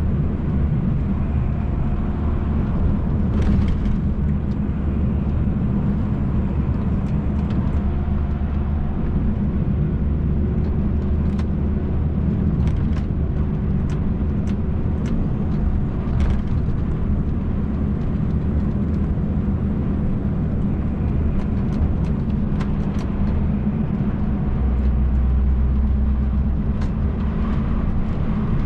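MAN TGX truck's diesel engine droning steadily with road noise inside the cab while cruising, with faint scattered clicks and rattles. The low drone swells briefly near the end.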